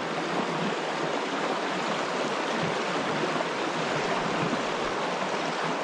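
Strong river current rushing steadily through a shallow, fast-flowing stream.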